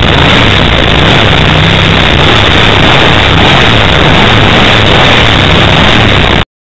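Ducati 888's 90-degree V-twin idling steadily, loud and close. It cuts off suddenly near the end.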